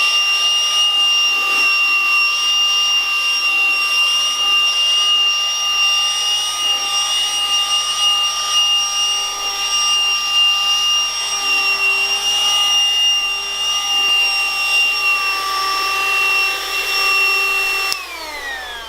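Onshowy cordless handheld vacuum cleaner running at full speed with a steady high whine. It is switched off near the end, its pitch falling as the motor spins down.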